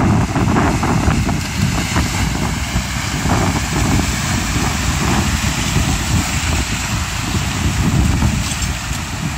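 Rushing and splashing water as a Ford Ranger pickup wades through a shallow river, pushing a bow wave around its wheels, with wind buffeting the microphone.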